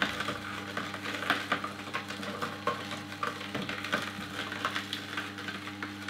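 Hurom Chef GH horizontal slow juicer running on carrots: a steady low motor hum under irregular crackling and crunching as the auger crushes the carrot pieces being pushed down the chute.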